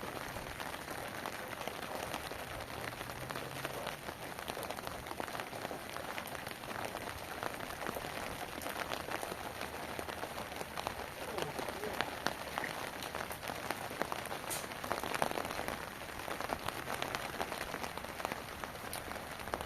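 Heavy rain falling steadily, an even hiss with many separate drops ticking through it.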